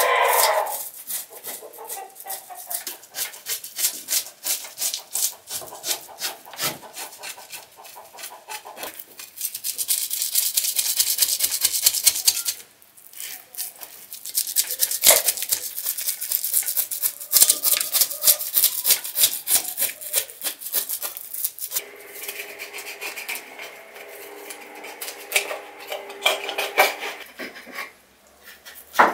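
Kitchen knife scraping the scales off a large whole fish on a wooden cutting board, in rapid back-and-forth strokes with longer stretches of continuous scraping.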